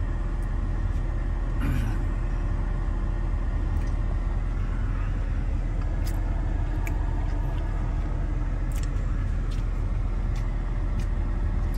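Steady low rumble of a car's running engine and cabin noise, heard from inside the vehicle, with a few faint ticks.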